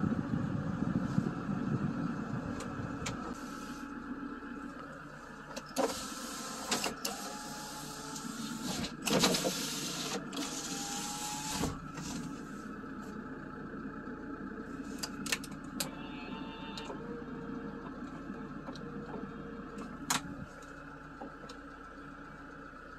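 Steady mechanical hum of the 2012 Kia Bongo truck idling, heard from inside its cab, with scattered clicks and a few short rustles of handling.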